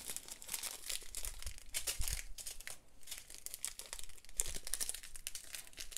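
Small plastic bags of diamond-painting drills crinkling and rustling as they are handled and sorted, with irregular crackles and little clicks that ease off briefly about three seconds in.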